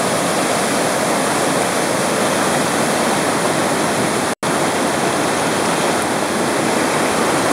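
Fast, muddy floodwater of a creek over its banks, rushing steadily and loudly past and over the road by the bridge. The sound cuts out for an instant about four seconds in.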